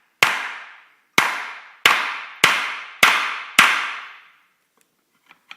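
Hammer striking six times at a quick, fairly even pace, driving a connector onto the end of a timber nogging through a guide tool. Each blow is a sharp crack that dies away over about half a second, with a few light clicks near the end.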